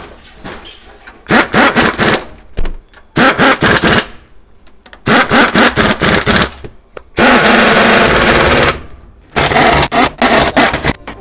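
Pneumatic impact wrench hammering on the case bolts of an Aisin AW55-51SN automatic transmission. It comes in five loud bursts of about a second each, and one longer, steadier run comes near the end.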